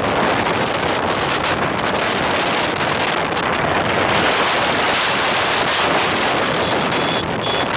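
Wind rushing over the microphone of a phone on a moving motorbike: a loud, steady noise with no clear engine note.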